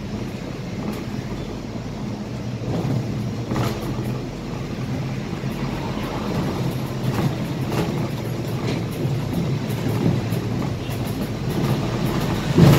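Cabin noise of a Scania K320IA articulated bus under way: a steady engine drone with road noise, and a few short knocks and rattles scattered through it, the loudest near the end.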